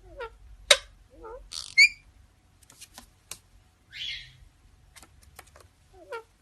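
Parrot making a string of short sounds: low warbling notes, a sharp click, hissy squawks and quick high chirps.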